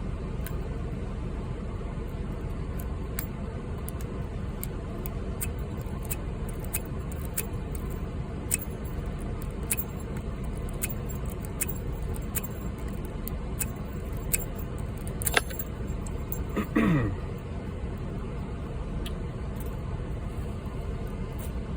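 Small, irregular metallic clicks of a hook pick and tension wrench working the pin stack of a padlock with security spool pins, over a steady low rumble. A louder click comes about two-thirds of the way through, followed shortly by a brief falling tone.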